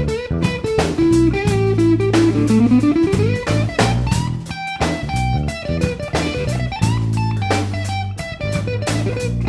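Instrumental background music in a bluesy style, with guitar over bass and a steady drum beat. A guitar line slides down in pitch and back up about two to three seconds in.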